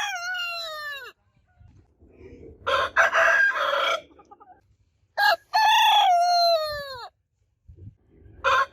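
Roosters crowing, one crow after another: a crow tails off about a second in, another comes around three seconds in, a third runs from about five to seven seconds with a long falling final note, and a fourth begins near the end. Each crow opens with a short clipped note before the long drawn-out one.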